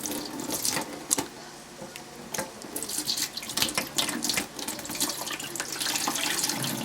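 Kitchen tap running into a sink as lamb brains are rinsed, with uneven splashing and small knocks that settle into a steadier stream about halfway through.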